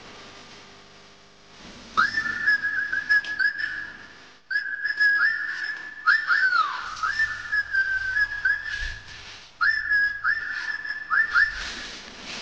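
A person whistling a tune in three phrases, mostly held on one high note with quick dips between repeated notes and one falling slide near the middle.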